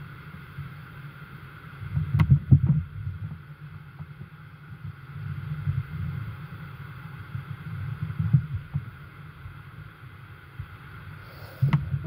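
AeroPress plunger being pressed slowly down, forcing brewed coffee through a stainless steel filter into a mug: low muffled surges of sound with a sharp click about two seconds in.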